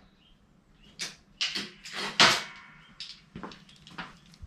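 Steel spanners clinking and knocking against metal in the engine bay as sizes are tried on a nut, a string of short sharp clicks with one louder ringing clink about two seconds in.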